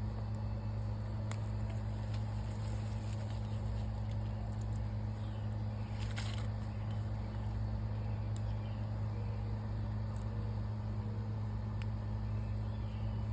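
Steady low mechanical hum without change, with a few faint clicks and a short rustle about six seconds in.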